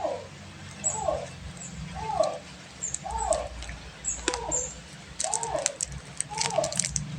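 A short squeaky call that rises and falls repeats steadily about once a second. Crinkling and clicking of candy wrappers being handled grows busier over the second half.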